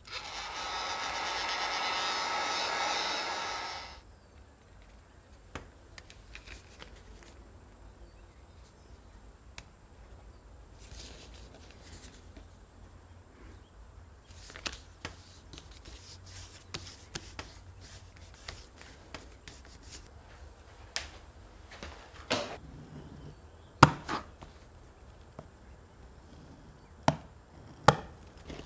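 Hand leatherwork on a stone bench top. It opens with about four seconds of continuous rough rasping that stops abruptly, then goes on as quiet handling of leather and tools, with a few sharp clicks and taps near the end.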